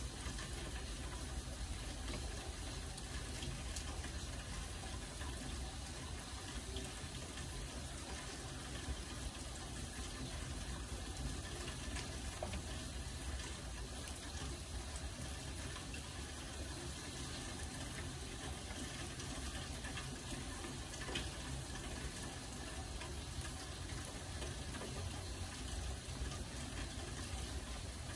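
Steady rain falling, an even hiss with scattered faint ticks of single drops.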